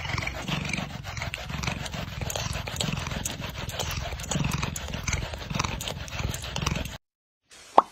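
Cat purring in slow swells while being brushed, with the brush bristles scratching through its fur in many short strokes. It cuts off about seven seconds in.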